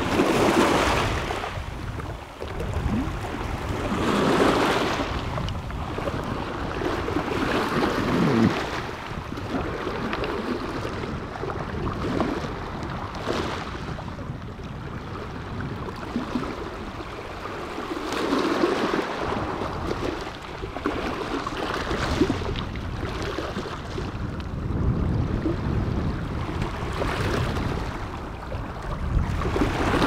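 Small sea waves breaking on a pebble beach and washing over the stones, the surf swelling and falling back every few seconds.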